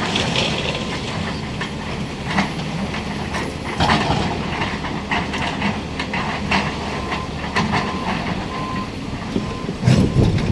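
SANY hydraulic excavator running under load, with repeated knocks and cracks of concrete breaking and debris falling as it demolishes a column. A louder cluster of knocks comes near the end.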